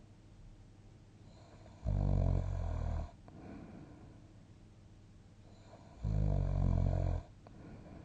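A sleeping person snoring: two loud snores about four seconds apart, each lasting a little over a second, with soft breathing between them.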